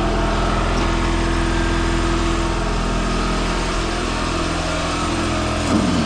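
A motor-driven machine running steadily with an even, low hum.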